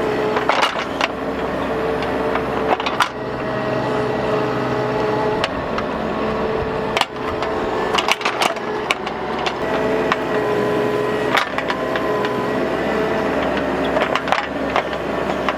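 Bobcat mini excavator running and digging a trench: a steady engine hum with a whine that comes and goes as the controls are worked, and sharp knocks and crunches from the bucket scraping through soil and stones.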